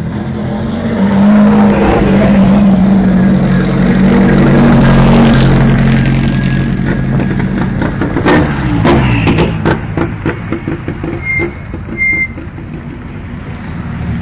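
Rally car engines running loud as cars drive past close by, with a steady engine note for several seconds that then drops in pitch. This is followed by a string of sharp pops and cracks about eight to ten seconds in.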